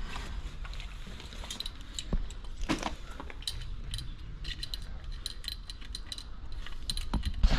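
Scattered light metallic clinks and jingles of small metal gear being handled and knocked together, over a steady low rumble.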